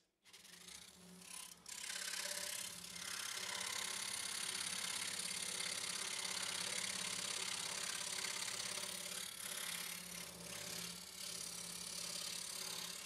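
Scroll saw running with a steady hum, its reciprocating blade sawing through thin dark hardwood stacked on pine. The sawing gets louder from about two seconds in and then holds steady.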